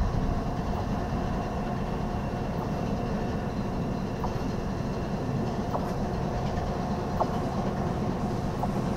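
Train approaching slowly: a steady low rumble with a few faint clicks.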